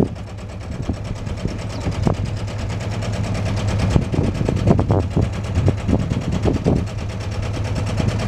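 Boat engine running steadily at low speed as the sailboat motors along, with gusts of wind buffeting the microphone.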